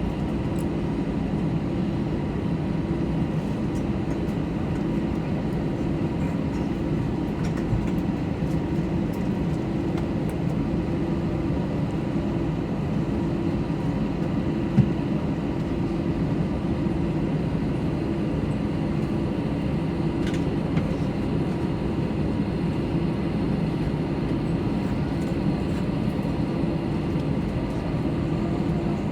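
Steady drone inside an Airbus A321's cabin during pushback: the hum of the aircraft's air and power systems with a low rumble that pulses gently, and a single small knock near the middle.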